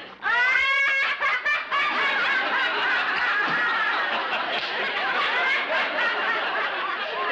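Two women laughing hard and long together, with a high, squealing burst of laughter about a second in, over the laughter of a studio audience.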